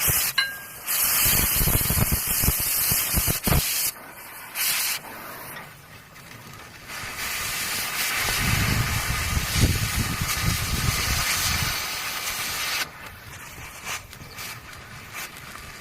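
Loud hissing in several bursts, the longest lasting about six seconds, with short quieter gaps between them.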